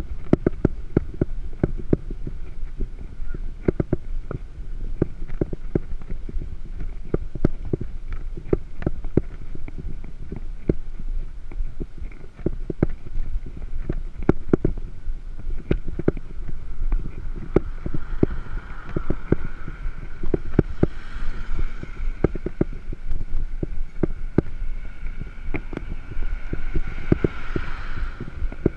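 Mountain bike rolling along a paved road, heard as a steady low wind rumble on the microphone with constant irregular rattling and knocking from the bike over the road surface. A fainter steady higher hum joins about two-thirds of the way in.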